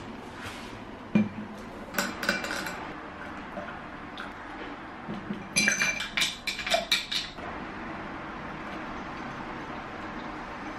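Metal spoon clinking against a tall drinking glass while stirring coffee: a knock about a second in, a few clinks around two seconds, then a quick run of ringing clinks about halfway through.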